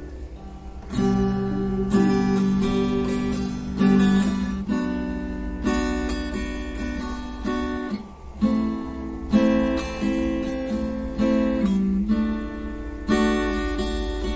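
Acoustic guitar strummed in chords, a strum about every second, with the chords changing every couple of seconds. The playing starts about a second in and eases off briefly about halfway through.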